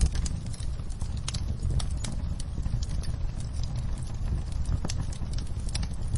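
Wood fire crackling in a fireplace: many small, sharp pops at irregular intervals over a steady low rumble.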